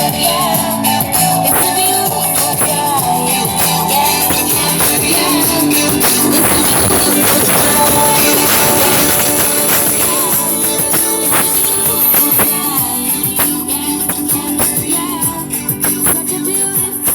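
Instrumental stretch of a pop song played loud through a Harley-Davidson Electra Glide's stereo: Hertz mid-range speakers and tweeters in the fairing and Rockford Fosgate 6x9s in the saddlebags. The level overdrives the tablet's microphone, so the recording sounds distorted.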